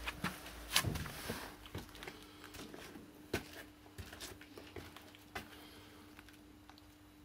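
Akita puppies scrambling and playing on a concrete floor beside a wooden panel: scattered knocks, scrapes and claw clicks, the loudest cluster about a second in, over a faint steady hum.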